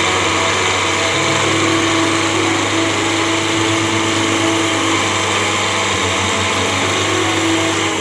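Diesel farm tractor engine running steadily under heavy load as it pulls a trolley piled high with sugar cane through a soft field, its low note throbbing in the second half.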